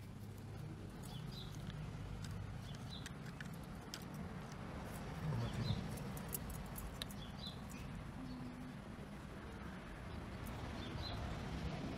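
Short high bird chirps, often in pairs, recurring every couple of seconds over a steady low rumbling background noise, with scattered small clicks.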